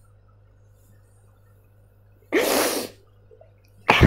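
A woman's single sharp, noisy burst of breath through the nose and mouth, about two seconds in, after near silence. Another loud burst of breath starts right at the end.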